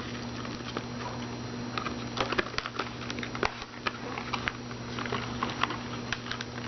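Scattered small clicks and crackles of a children's toy and its packaging being handled and pulled apart, over a steady low hum.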